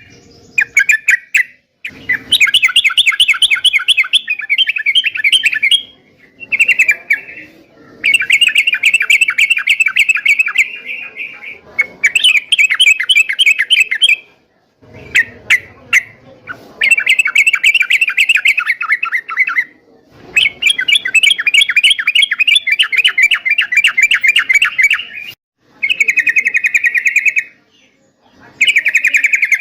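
Yellow-vented bulbul (trucuk) singing loudly and without let-up, in phrases of fast, rattling repeated notes one to five seconds long, with short pauses between them.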